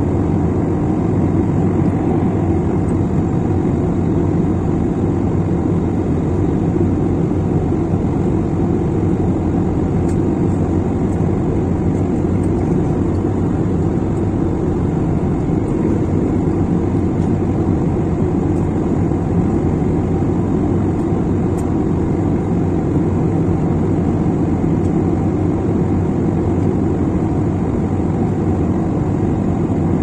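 Steady cabin noise of a jet airliner flying above the clouds: a constant low rumble of engines and rushing air, heard from inside the cabin.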